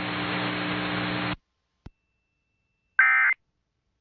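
Weather radio broadcast hiss and hum that cuts off about a third of the way in, a faint click, then about three seconds in a short, harsh electronic data burst: the first of the Emergency Alert System's digital end-of-message (SAME EOM) bursts that close a NOAA Weather Radio warning.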